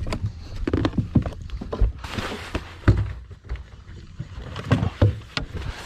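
Scattered knocks and thumps of people moving about in a small fishing boat, over a steady low rumble.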